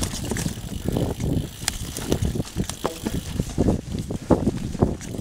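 Mountain bike riding fast down a dirt trail covered in leaf litter: the tyres run over the ground with a steady rumble, and the bike rattles with many irregular knocks and clicks over the bumps.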